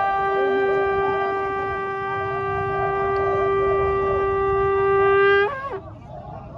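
A conch shell (shankha) blown in one long, steady blast that ends about five and a half seconds in with a brief wavering fall in pitch.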